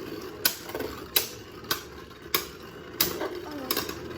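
A series of about six sharp clicks or knocks, unevenly spaced roughly half a second to a second apart.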